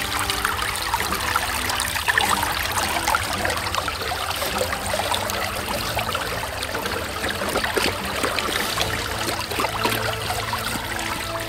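Small woodland stream trickling and splashing over leaves and twigs, heard close up.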